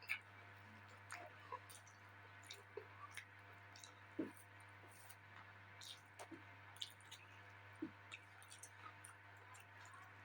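Quiet eating sounds: scattered faint wet clicks and smacks of a mouth chewing, one or two a second, over a low steady hum.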